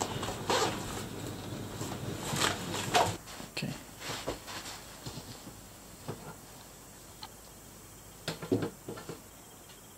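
Rustling and clicking of a soft striped cooler bag being handled and closed on a table, with several sharp knocks in the first three seconds. After that, a quiet room with a few faint isolated ticks.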